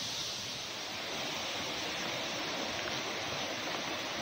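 Steady hiss of storm water, rain and running runoff, with no single sound standing out.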